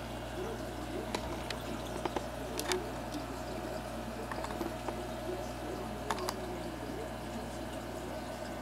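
Aquarium aeration: bubbles streaming up from an air stone, a steady bubbling and churning of water over a constant low hum, with a few light clicks scattered through.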